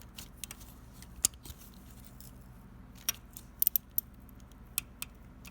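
Sharp metallic ticks, irregularly spaced with a loud one a little over a second in and a quick cluster past three seconds: a seized, broken exhaust manifold bolt in a 5.3 Vortec cylinder head ticking as it is worked loose with a wrench a few degrees at a time.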